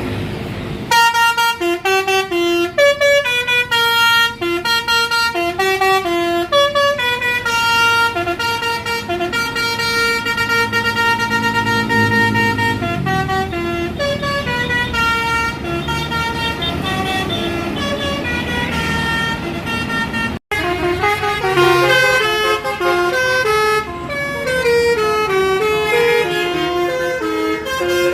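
A bus's basuri melody horn plays a quick tune of stepping notes. It drops out for an instant about twenty seconds in, then carries on.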